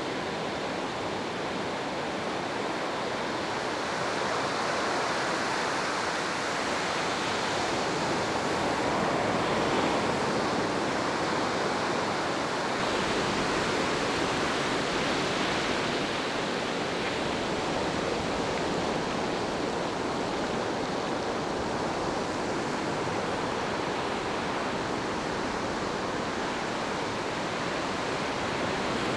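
Steady rush of ocean surf washing up a sandy beach: a continuous hiss that swells a little a couple of times.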